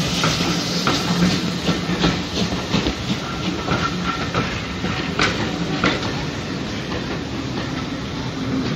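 Railway passenger coaches rolling past close by: a steady rumble of wheels on rails, with irregular sharp clicks as the wheels cross rail joints.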